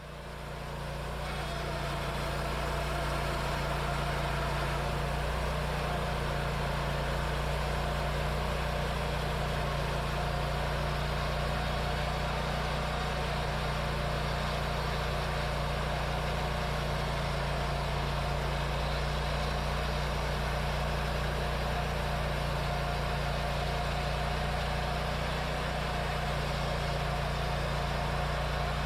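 Wood-Mizer LT40 band sawmill running steadily through a pass in shagbark hickory, its engine and band blade making a constant hum that builds up over the first couple of seconds and then holds. The blade is one the sawyer says is not cutting the way it is supposed to, leaving wavy cuts.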